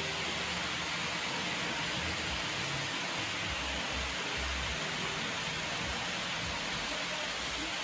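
H0 model trains running on the layout's track: a steady, even rolling hiss of wheels and motors.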